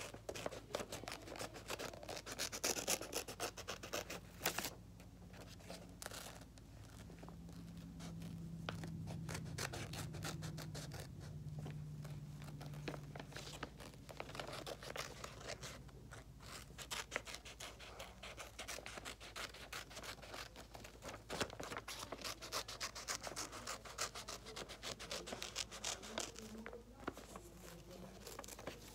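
Scissors snipping through a sheet of paper, cutting out a drawn shape in a long run of small crisp cuts, with the paper rustling and rubbing as it is turned.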